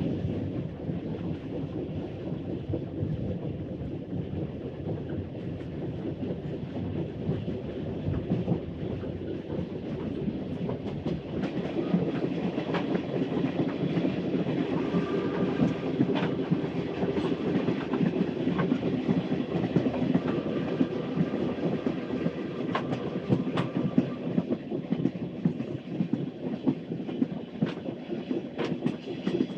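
Early-1900s steam train running on the rails: a steady low rumble with scattered clanks and clicks, growing a little louder about ten seconds in.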